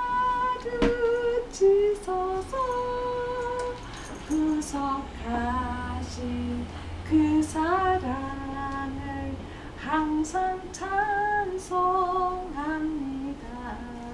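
A woman singing a slow, simple tune in held notes, with a single knock about a second in.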